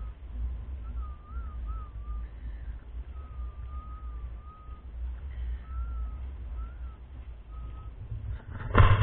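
A thin, wavering, whistle-like call is repeated several times, each about half a second long, over a steady low rumble of wind on the microphone. A loud bump comes near the end.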